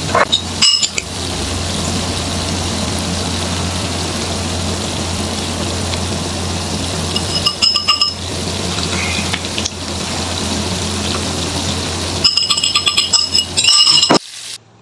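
Steady sizzling of food frying in oil, with runs of ringing clinks from a utensil striking a dish: briefly about half a second in, again around the middle, and a longer run near the end. The sound cuts off suddenly just before the end.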